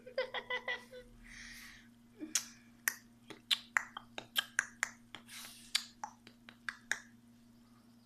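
A short bit of voice and a breath, then a run of sharp, irregular clicks and taps, about three or four a second, that stops near the end.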